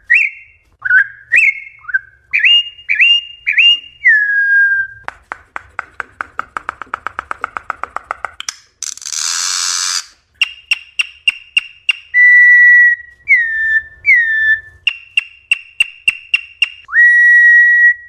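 A corrupião (campo troupial) singing its wild 'mateiro' song: loud, clear whistled phrases, some notes rising and some falling. About five seconds in there is a fast dry rattle of about nine clicks a second, then a short loud harsh hiss, and the song closes with a long steady whistle.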